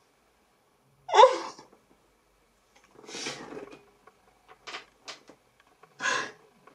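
A man's stifled laughter with his hand over his mouth: a short squeaky burst of laughter about a second in, then breathy gusts of air and a few small catches of breath, with another burst of laughter near the end.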